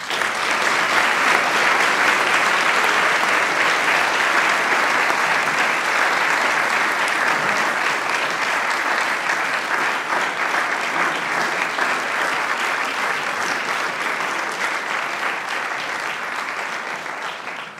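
Audience applauding at the close of a speech. The applause breaks out all at once and holds steady, then slowly dies away near the end.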